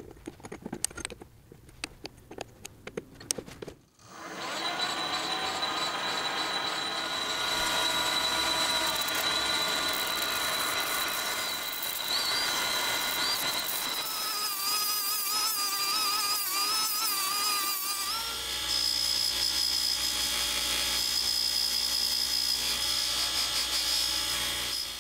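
Small clicks and knocks as a metal part is set into a four-jaw lathe chuck. About four seconds in, machine running starts and rises in pitch, and a cordless rotary tool with an abrasive polishing wheel works against the spinning part, its whine wavering under load. About eighteen seconds in it changes to a steadier hum with a high whine as the part, held in a drill chuck, is polished on a cloth buffing wheel; the sound cuts off just before the end.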